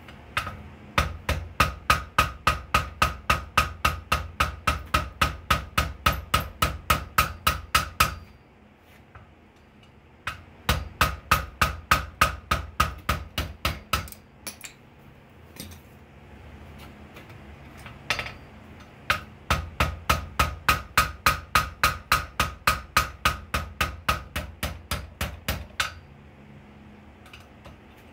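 Blacksmith's hand hammer striking red-hot steel held in tongs on an anvil, in three fast runs of about three blows a second with short pauses between, each blow ringing. A steady low hum runs underneath.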